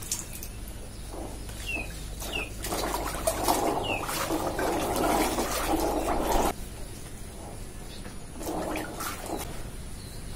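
Water sloshing and splashing in a plastic tub as small fruits are washed by hand, loudest for a few seconds in the first half, with a shorter splash near the end. A few short falling bird chirps sound over it.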